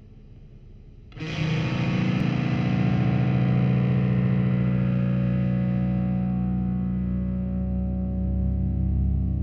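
Ambient drone music: an effects-laden, distorted fretless guitar enters suddenly about a second in, over a faint hum, and holds a dense, sustained low drone.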